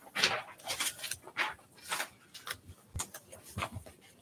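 Sheets of paper being handled and shuffled: a string of short, irregular rustles.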